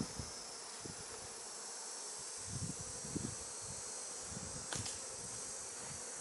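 Honeybees buzzing steadily around an open hive, with a few soft low knocks from handling partway through and a single sharp click near the end.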